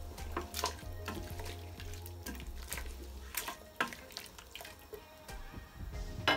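Wooden spoon stirring a thick stew in an aluminium pressure-cooker pot: liquid sloshing, with scattered light knocks of the spoon against the metal.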